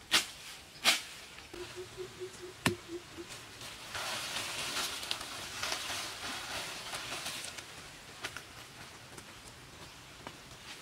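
Undergrowth being cleared by hand: a few sharp cracks of stems or branches early on, then about three seconds of leaves and stems rustling as plants are pulled up.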